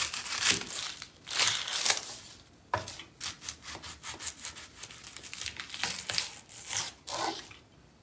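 Kitchen knife cutting and scraping through a large white onion on a wooden cutting board in a series of short strokes, with the dry, papery onion skin rustling and tearing as it is pulled off.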